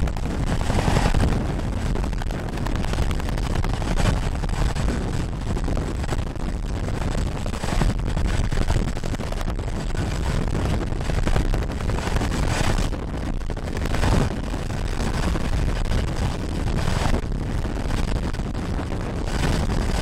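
Boeing CH-47 Chinook tandem-rotor helicopter hovering close overhead while lifting a heavy sling load: a loud, steady, rapid thudding from the twin rotors, with surges every couple of seconds as the rotor downwash gusts across the microphone.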